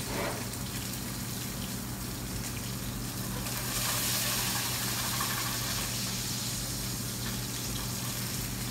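Chicken breast and mushrooms sizzling in hot oil in a sauté pan, a steady hiss that grows louder about three and a half seconds in, over a steady low hum.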